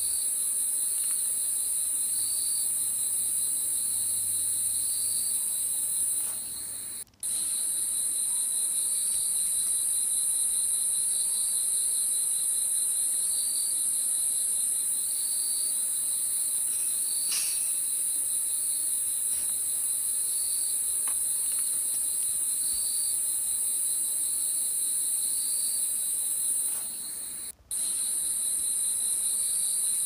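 Crickets chirping continuously: a steady, high, finely pulsed trill that swells regularly about once a second. It drops out briefly twice.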